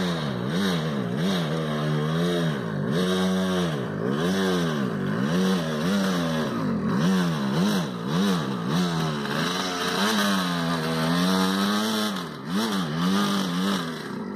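Honda CR250 two-stroke single-cylinder dirt bike engine revving up and down over and over, the throttle blipped about once or twice a second as the bike climbs under load.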